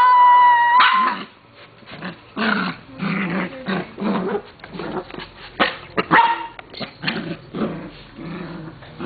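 Small dogs play-fighting: a long, high, steady whine ends just under a second in, then growling with short sharp barks and yips.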